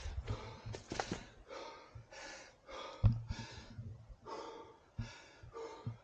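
A man breathing hard and fast, out of breath: a steady run of quick, hissing breaths, with low bumps and one sharper thump about three seconds in.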